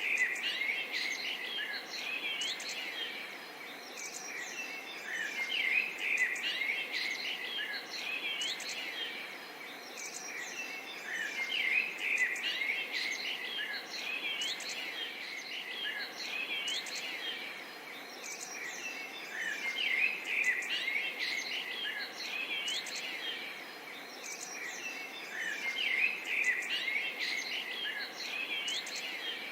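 A chorus of many small birds chirping and singing, thick overlapping calls that swell and ease every several seconds over a steady background hiss.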